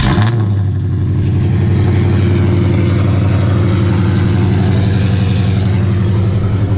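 Car engine catching on start-up with a brief flare at the very start, then idling steadily and loudly.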